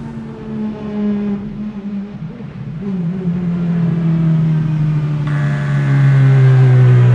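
Apollo Intensa Emozione's 6.3-litre naturally aspirated V12 running, its engine note dropping steadily in pitch while growing louder toward the end.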